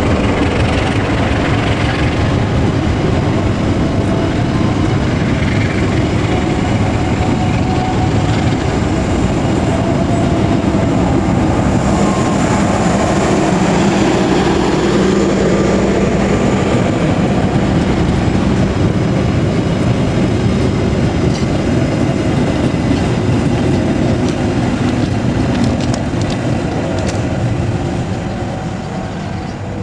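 Passenger train coaches rolling past close by, with a steady, loud rumble and clatter of wheels on the rails. The sound eases off near the end as the train moves away.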